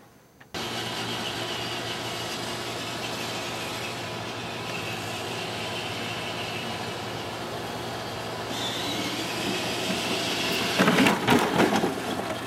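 Battery-powered ride-on toy Jeep's electric motor and gearbox whining steadily as it drives across a grass lawn, with a burst of loud rattling knocks near the end.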